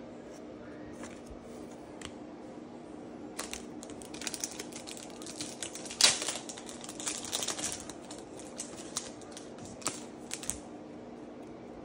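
Crackling, crinkling and clicking of a foil Pokémon booster-pack wrapper and cards being handled. The dense run starts about three seconds in, is sharpest about six seconds in, and thins out near the end, over a steady low hum.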